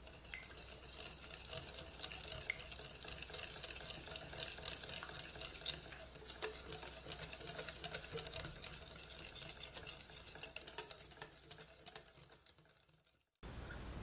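Wire whisk beating a batter in a glass bowl: fast, continuous clicking of the wires against the glass, fading out near the end.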